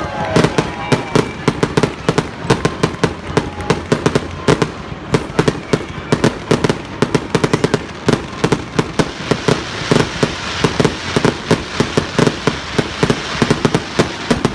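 Aerial fireworks display going off: a rapid, dense barrage of bangs, several a second, over continuous crackling.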